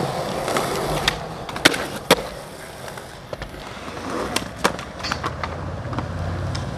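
Skateboard wheels rolling on a concrete skatepark surface, broken by sharp clacks of the board hitting the ground. The two loudest clacks come close together about two seconds in, and a few smaller ones follow between four and five seconds in.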